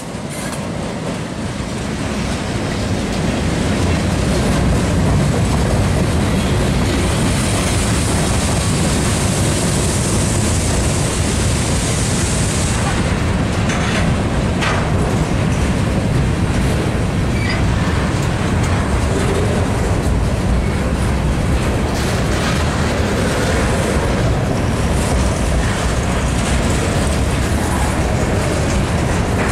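A freight train of empty covered hopper cars rolling past at a grade crossing, with wheels clattering over the rails and crossing. It builds over the first few seconds as the TZPR SW10 switcher's diesel and the first cars go by, then holds steady, with a high hiss over it for several seconds about a quarter of the way in.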